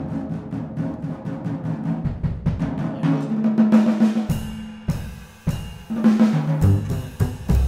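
Jazz drum kit taking a break on its own, snare and bass drum hits and rolls, in a quartet's calypso-jazz tune. The playing drops back briefly just after the middle, then comes in again with a sudden hit.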